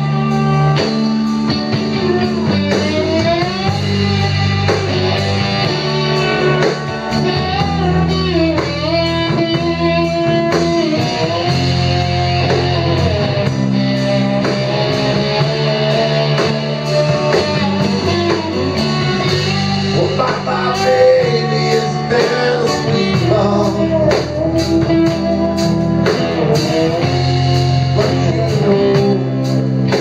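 Live blues-rock band playing: electric guitar, bass guitar and drum kit, with a lead line that bends up and down in pitch over a steady beat.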